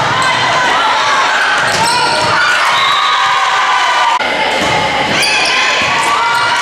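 Volleyball match sound in a gym: players' and spectators' shouts and calls overlapping, with a few sharp thuds of the ball being hit.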